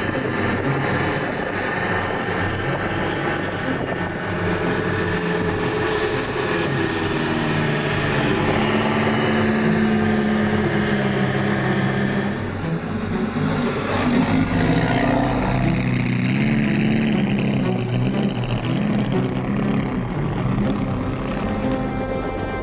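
Vintage Bugatti Grand Prix-style two-seater's engine running under way, its note rising and falling as it accelerates and changes gear, changing character about halfway through.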